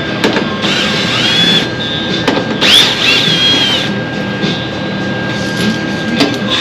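A handheld power tool working on sheet metal in two short bursts, its whine sliding in pitch as it runs up and loads down, with a few sharp clicks between.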